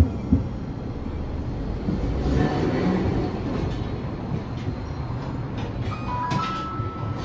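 Nagasaki Electric Tramway 3000-series low-floor tram with a Toyo IGBT inverter drive, heard from inside as it slows and draws up to a stop. Low rolling rumble of wheels on rail, with two sharp wheel thumps at the start and a few brief steady electrical tones near the end as the car comes to a halt.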